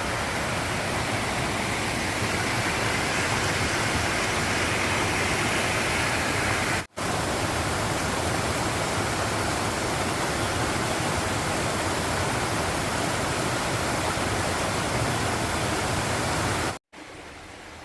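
Steady, loud rush of a fast-flowing mountain stream cascading over rocks. It cuts out for an instant about seven seconds in, and again near the end, after which the water sounds noticeably quieter.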